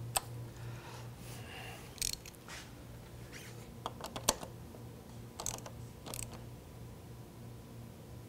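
A 3/8-inch drive ratchet with an extension turns the internal three-way valves of a flow controller, making scattered sharp clicks and short scrapes over a steady low hum.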